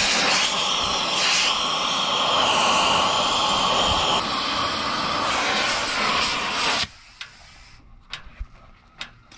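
Oxy-fuel gas torch flame hissing steadily as it heats the steel frame rail of a mini truck. It stops abruptly about seven seconds in, leaving a few sharp clicks and taps.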